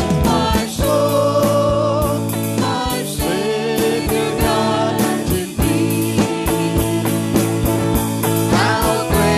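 Worship band and singers performing a gospel song, with voices over guitar and a steady drum beat.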